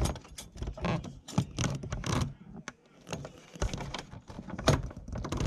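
Irregular clicks, taps and rustling of a hand working a D1S xenon bulb loose in its headlight socket close to the microphone.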